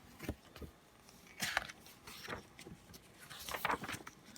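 Faint handling sounds of a paper book: a few soft rustles and small clicks as pages are handled and turned.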